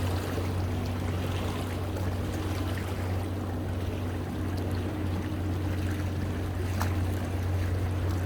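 Seawater washing and trickling among shore rocks in small waves, over a steady low hum.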